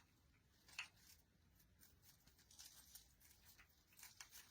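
Near silence with faint, scattered rustling and light ticks as artificial pine picks and wire are handled.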